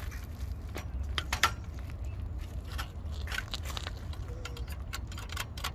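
Bike lock being handled at a bicycle wheel: scattered metallic clicks and rattles, one sharper click about a second and a half in, over a steady low rumble.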